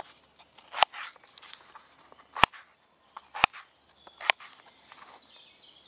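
Small camp kitchen knife slicing through raw potato onto a chopping board. Each cut ends in a sharp click of the blade on the board, four times at irregular intervals, with softer scraping between.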